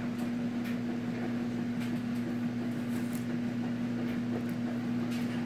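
A steady, unchanging low hum under faint room noise, with no other sound.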